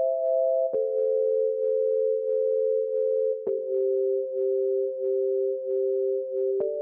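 Synthesised music: two steady, pure sustained tones held together as a chord, stepping down to new pitches about a second in and again halfway through, with a click at each change. Underneath runs a faint pulse of short notes, about two a second.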